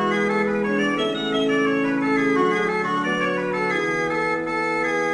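Organ music playing slow, sustained chords, the held notes shifting to a new chord every second or so.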